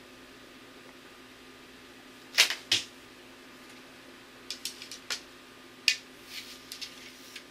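A traditional bow shot: the string is released with a sharp snap about two seconds in, and the arrow strikes the target with a thud a third of a second later. Then comes a scatter of light clicks and taps as arrows and bow are handled.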